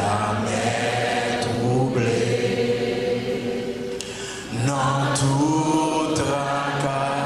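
A congregation singing a slow hymn phrase in unison along with the preacher, on long held notes; a new phrase starts about four and a half seconds in.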